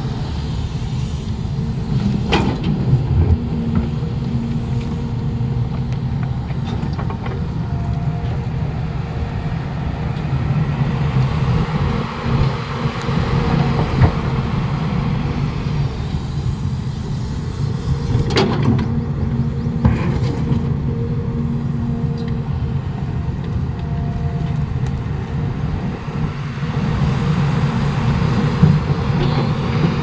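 Caterpillar hydraulic excavator's diesel engine running steadily under load while it digs and loads soil, with a few sharp clanks along the way.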